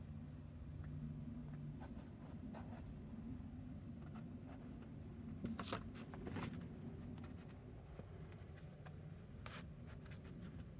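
Light scraping and scattered small clicks of work on wooden parts during a glue-up, with a couple of sharper ticks about six seconds in.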